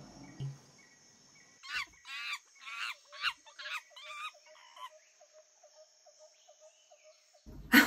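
A quick series of about seven short animal calls, growing fainter, followed by faint rapid ticking.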